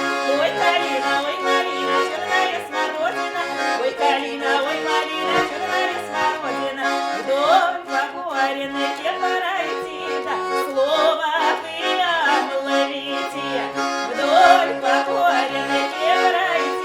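Accordion playing a Russian folk-style song tune, with steady held chords under a moving melody.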